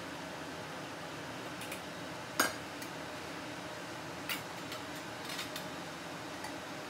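Metal tongs and a stainless-steel pan clanking as steak is handled in the pan: one sharp clank about two and a half seconds in, a smaller one near the middle, then a few light clinks, over a steady hiss.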